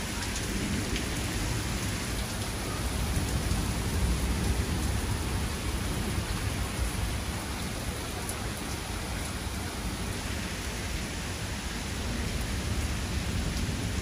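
Heavy rain pouring steadily onto lawn, pavement and parked cars in a thunderstorm, with a low rumble of thunder rolling underneath.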